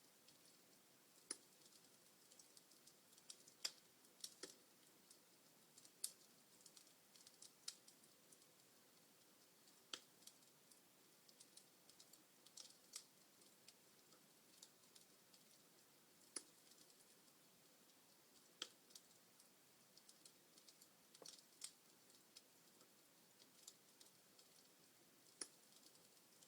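Wood fire crackling: irregular sharp pops and snaps, a few standing out louder than the rest, over a faint hiss.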